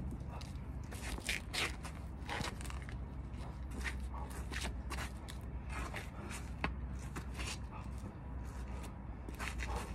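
Feet scuffing and stepping on stone patio pavers and a long staff swishing, in short irregular strokes, over a steady low rumble.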